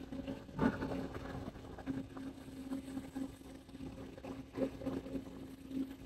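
An engine running steadily with a constant low hum that swells and dips slightly, under street traffic noise, with a brief louder rush about half a second in.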